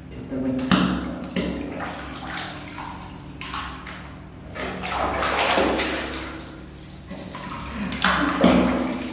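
Water splashing and sloshing in a plastic basin as a soapy kitten is dipped and swished through it to rinse off the soap, in several bouts.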